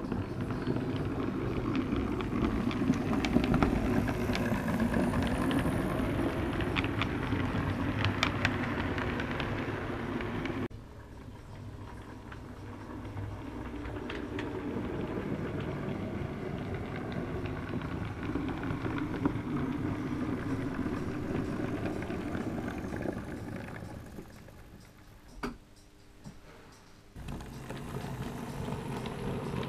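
Model railway train running along the track: a steady rumble of motor and wheels with frequent light clicks. The sound drops abruptly about a third of the way in, fades low near the end with one sharp click, then returns suddenly.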